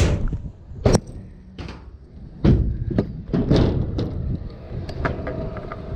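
Pro scooter rolling over skatepark concrete and ramps, its wheels rumbling with several sharp knocks as they clack over joints, a metal plate and ramp edges; the loudest knocks come right at the start and about a second in.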